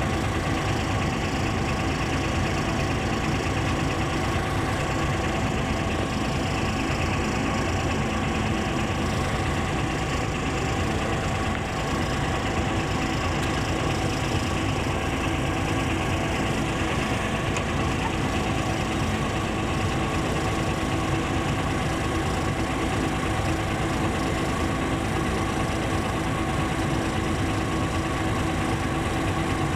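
Heavy diesel excavator engine running steadily, a continuous even drone with a few steady tones over it.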